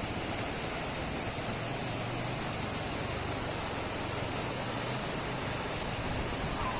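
Steady, even rushing of water, as of heavy rain or a fast stream.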